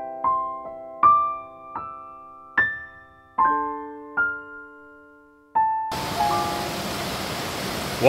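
Gentle piano background music, single notes struck and fading one after another. About six seconds in, the steady rush of a mountain stream cascading over rocks comes in.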